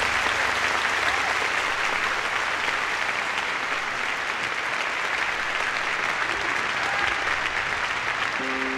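Large concert audience applauding steadily as a song ends. Near the end, sustained notes of the next song come in under the clapping.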